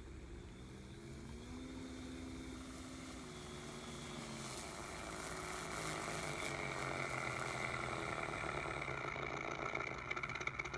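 FMS T-28 Trojan RC model plane taxiing in: its HobbyKing sound module plays a simulated piston-engine idle over the whir of the electric motor and propeller. The engine note drops to a lower steady idle about three seconds in. The sound grows louder as the plane approaches, and a rapid rhythmic chugging sets in near the end.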